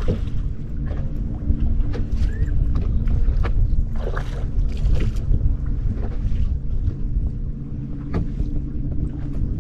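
Bass boat's motor running steadily, with wind rumbling on the microphone and scattered small knocks.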